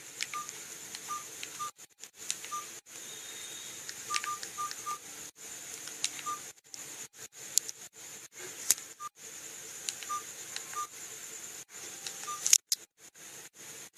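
Key beeps of an iTel it2180 keypad feature phone: a dozen or so short beeps, all at one pitch and spaced irregularly, with faint clicks, as its keys are pressed to work through the menus.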